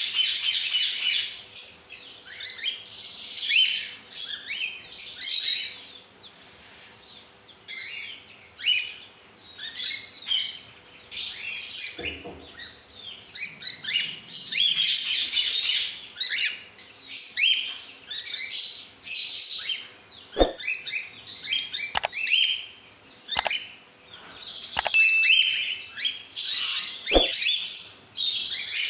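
A group of cockatiels chirping and calling, many short overlapping chirps with hardly a pause. In the second half a few sharp clicks sound among the calls.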